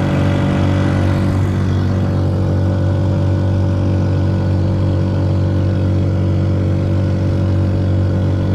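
Honda Supra 125 motorcycle engine, a single-cylinder four-stroke, driving the boat at high revs in top gear, running at a steady, unchanging pitch.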